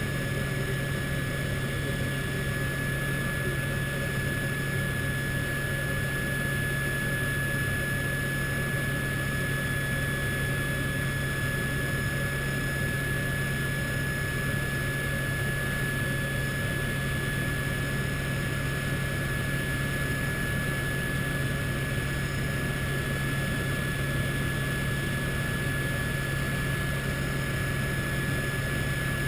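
Helicopter in steady flight heard from inside the cabin: constant rotor and engine noise with a low hum and a steady high whine.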